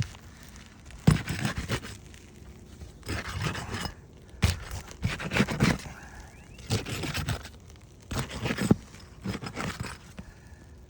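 Repeated rough scraping on an asphalt shingle roof, in about seven separate bursts of half a second to a second each.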